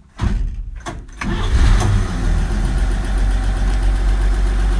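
1953 Chevy pickup's straight-six engine being started: the starter cranks for about a second, then the engine catches and settles into steady running.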